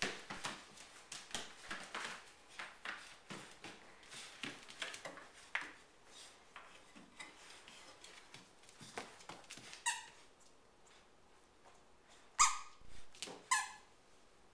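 A puppy chews and tussles with a plush squeaky toy on a vinyl floor: a run of small clicks and scuffles, then the toy's squeaker squeaks three times near the end, the second squeak the loudest.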